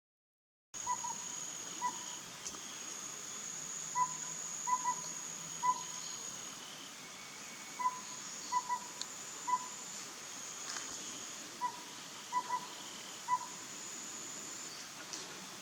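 Collared owlet singing: its soft whistled phrase of four even-pitched notes, one note, a quick pair, then one note, repeated about every four seconds, three full phrases in all. A steady high insect trilling runs behind it.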